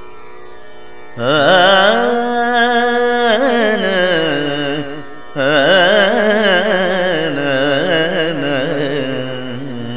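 Male voice singing a wordless Carnatic alapana in raga Sindhu Bhairavi: two long phrases full of wavering gamakas and slow glides, the first starting about a second in, the second about five seconds in and sinking low.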